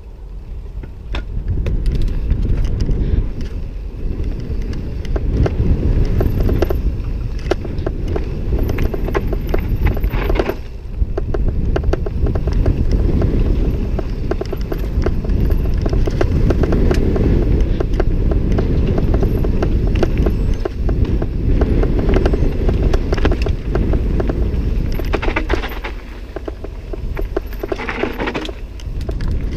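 Mountain bike descending a dirt and gravel trail: heavy wind rumble on the microphone, with tyres crunching over the ground and the bike's chain and frame rattling over bumps. The rumble drops briefly twice, about ten seconds in and again near the end.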